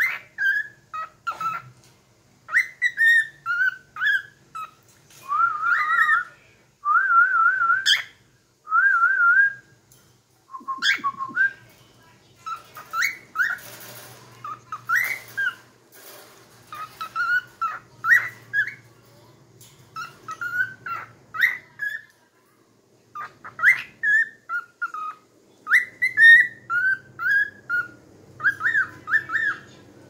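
Cockatiel whistling in short warbled phrases, some held as a quick wavering trill, with scattered clicks. There is a brief rustle about halfway through.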